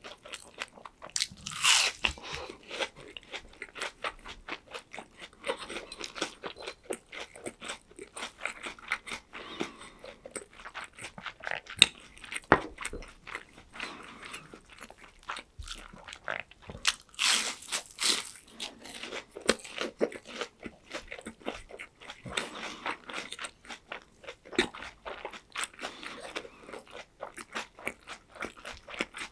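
Close-miked biting and chewing of crispy breaded tonkatsu (fried pork cutlet), a steady run of crunches. Louder bites come near the start and again about halfway through.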